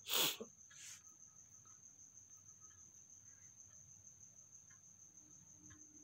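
A faint, steady high-pitched trill, with a short breathy burst at the very start and a fainter one about a second in.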